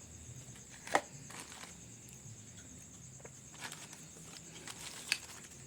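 Crickets trilling steadily, with two sharp clicks, one about a second in and one near the end, and a few fainter ticks.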